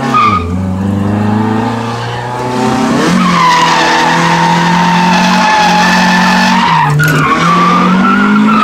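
Mazda Miata's four-cylinder engine held at high revs while the tyres squeal through a drift, heard from inside the cabin. The squeal starts loud about three seconds in and runs on to the end, and the engine note dips and picks back up twice.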